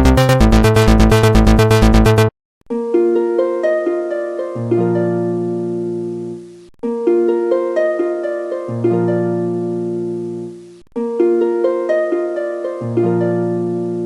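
The end of a loud electronic music clip cuts off about two seconds in, followed by a short harp jingle: a plucked phrase of ringing notes with a deeper part joining about two seconds into each phrase, played three times in a row.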